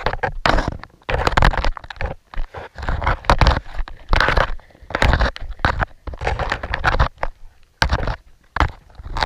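A trolled lure rig dragging and bumping over a lake bed of mussel shells and gravel, heard underwater: irregular bursts of scraping and crunching with short gaps between them.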